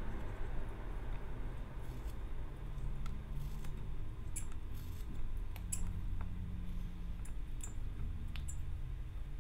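Carving knife slicing small chips from a jelutong block in short, crisp cuts, with a string of sharp clicks and snaps mostly in the second half, over a low steady rumble.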